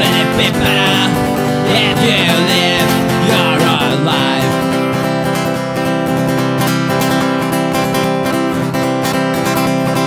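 Acoustic guitar strummed steadily, accompanying an acoustic punk song.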